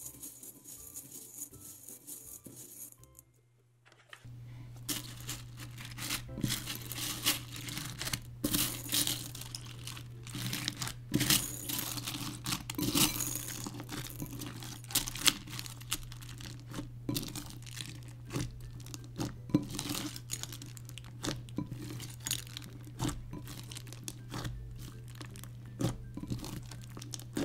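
Hands kneading clear slime full of plastic fishbowl beads in a glass bowl. It makes a dense, irregular crackling and clicking as the beads squish and pop through the slime. After a short lull about four seconds in, it carries on over a steady low hum.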